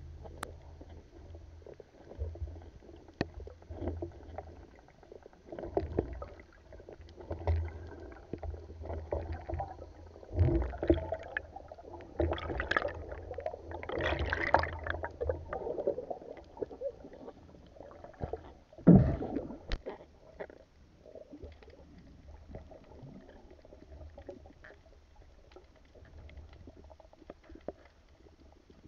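Muffled underwater noise heard through a camera housing: irregular low rumbles and bubbling, with a rush of bubbles in the middle and one sharp knock about two-thirds of the way through.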